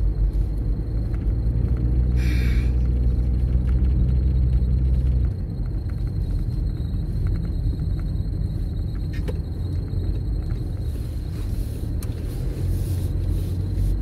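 Car cabin rumble from the engine and tyres while driving on a snow-covered road. The rumble is heavier for the first five seconds, then eases. A short hiss comes about two seconds in.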